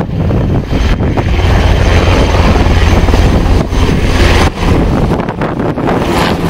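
Aircraft engine noise, a loud steady rush with deep rumble, mixed with wind buffeting the microphone.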